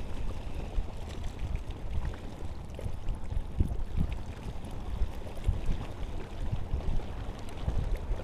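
Wind gusting on the microphone in an uneven low rumble, with water lapping and splashing against a concrete breakwater.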